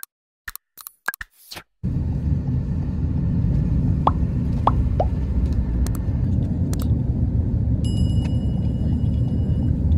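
Steady low rumble of a car driving, heard from inside the cabin, after a few short clicks in the first two seconds. About eight seconds in, a bell chime sound effect rings for about two seconds over the rumble.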